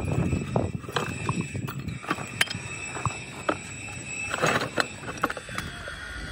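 Irregular knocks and clanks of cast-iron brake-drum work, with a short scraping rush about four and a half seconds in, over a faint steady high machine whine.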